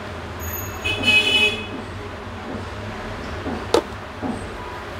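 A vehicle horn sounds briefly about a second in, a short high-pitched toot, over a steady low hum. A single sharp click comes near the end.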